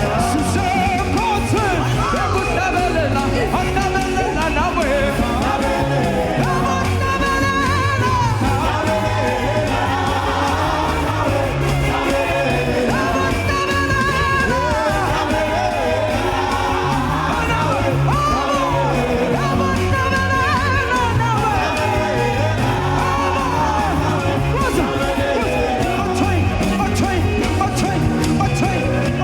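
Gospel praise music: a band with bass and drums playing under singing voices.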